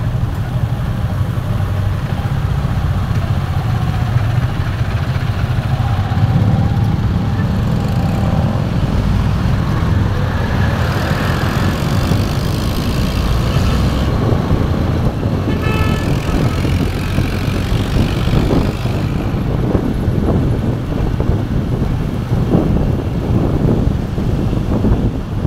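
Steady wind buffeting and road noise on a moving motorcycle in traffic. A brief vehicle horn toot sounds about two-thirds of the way through.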